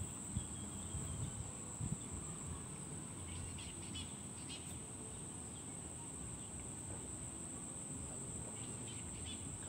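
Insects shrilling in one steady high-pitched drone, with a low rumble underneath and a few short chirps about three to four seconds in.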